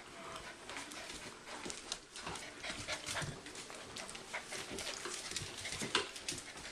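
Young puppies scrambling about on a tile floor, their claws ticking and scrabbling on the tiles in quick irregular clicks, with small puppy vocal sounds mixed in.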